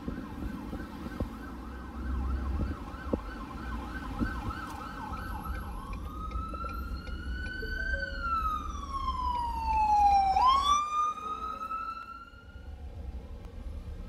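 Emergency vehicle siren in a fast yelp, switching about six seconds in to a slow wail that rises and falls, then sweeps up sharply and holds before fading out near the end. The low rumble of the truck's engine and road noise runs underneath.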